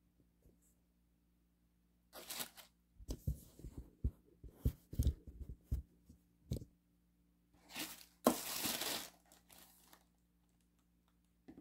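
Handling noises: a short rustle about two seconds in, a run of light knocks and bumps, then a longer, louder rustle near the end, as a tarot card, tissue paper and packaging are handled on a wooden table.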